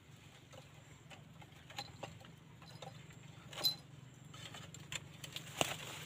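Hands working at a plastic quail trap cage and its mesh compartment: scattered light clicks and rustles, with a sharper click a little past halfway and another near the end.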